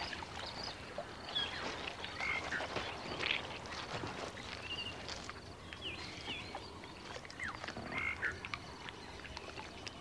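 Faint wildlife ambience: scattered short, high chirping calls of small animals, several a second at times, over a soft hiss.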